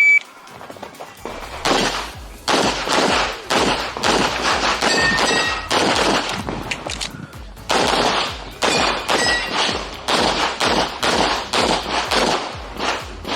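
Pistol shots fired in quick strings through an IPSC stage run, with short ringing tones at a few points as steel plates are hit. Background music with a steady beat plays under the shooting.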